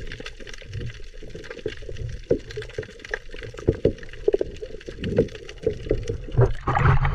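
Underwater sound heard through a submerged camera: a muffled low water rumble with scattered clicks and knocks. Near the end a louder, brighter rush of water begins as the camera nears the surface.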